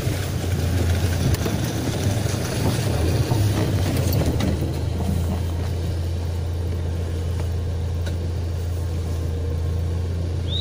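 Car engine and running noise heard from inside the cabin: a steady low hum under a wash of road noise. A short high rising squeak comes right at the end.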